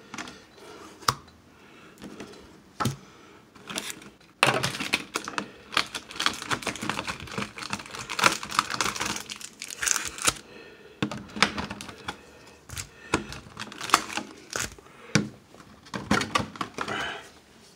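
Cardboard and plastic packaging of a Pokémon trading card collection box being handled and unpacked: dense runs of small clicks, crackles and crinkling, busiest in the middle and again near the end.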